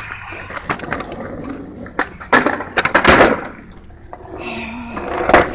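Skateboard clattering on hard ground: a series of sharp clacks and knocks, with a louder, rougher rush of board and wheel noise about two to three seconds in.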